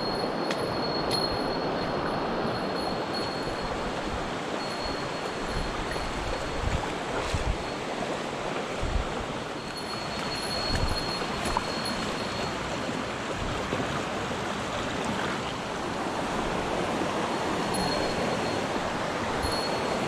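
Shallow mountain stream running low over rock slabs and boulders: a steady rush of water. A few low bumps come about a third of the way in.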